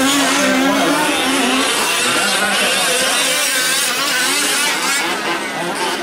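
Several 1/5-scale gas RC trucks' small two-stroke engines revving and easing off over one another as they race, their pitches rising and falling.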